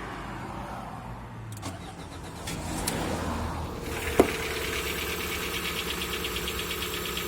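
Lada Vesta 1.6 petrol engine being started: about four seconds in it catches and settles into idle with a fast, even ticking, a knock that the owner suspects comes from the hydraulic lifters or the pistons.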